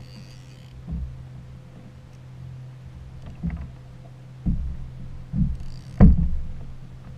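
Hollow knocks on a plastic fishing kayak's hull, several spaced over a few seconds with the loudest about six seconds in, over a steady low hum. A brief rattle comes at the start and again near the loudest knock.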